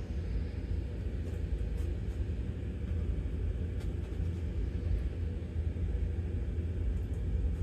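A steady low rumble, with a few faint soft clicks.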